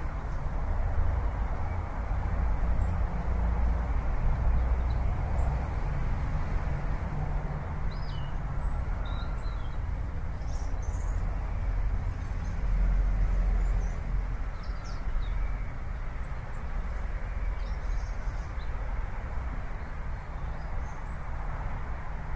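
Outdoor city ambience: a steady low rumble with faint, scattered bird chirps through the middle and later part.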